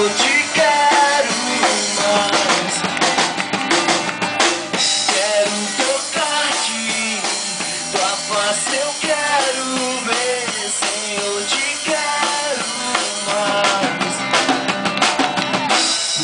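A live rock band playing a worship song, with guitars over a drum kit keeping a steady beat.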